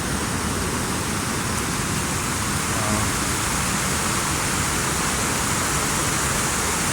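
Steady, even rush of water pouring down a creek waterfall.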